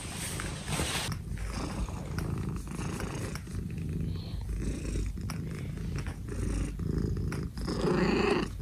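Senior calico cat purring steadily close to the microphone, with a short meow near the end.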